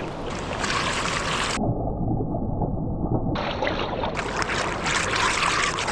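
A river in flood rushing steadily, with a low rumble underneath.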